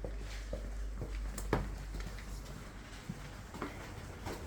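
A few light clicks and knocks, the sharpest about one and a half seconds in, over a low steady hum.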